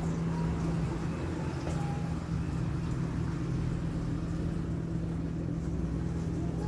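DJI Mini 2 drone's propellers humming steadily at one pitch, over a rough low rumble.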